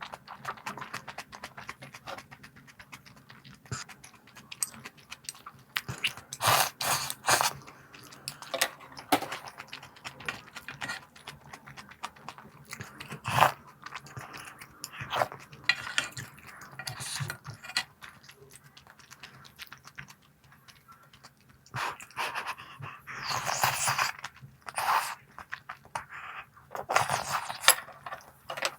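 Close-up chewing of crunchy snacks: irregular sharp crunches, with louder clusters of bites now and then.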